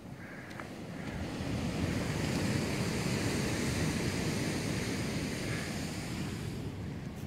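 Ocean surf on a beach: a wave's wash swells over the first two seconds, holds, then eases off near the end.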